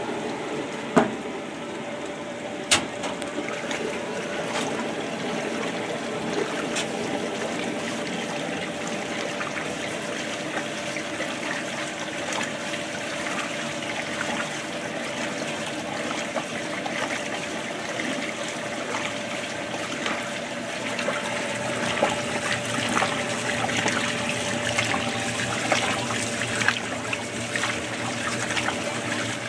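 Top-loading washing machine running: a steady motor hum under water churning and sloshing as the agitator works a load of clothes. The sloshing grows busier and louder in the second half, and there are two sharp clicks in the first three seconds.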